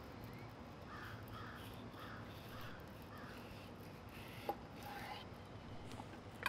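Faint bird calls: a run of about six short, similar calls, roughly two a second, followed by a single light knock a little after the middle.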